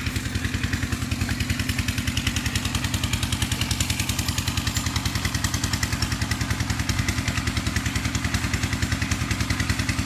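An engine running steadily with a fast, even pulsing beat.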